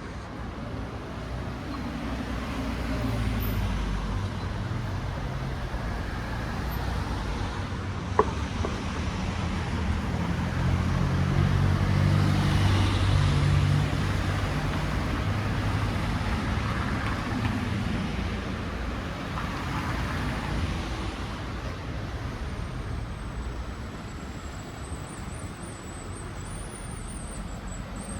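Street traffic: motor vehicles passing with an engine rumble that swells to its loudest around the middle and then fades. A single sharp click comes about eight seconds in.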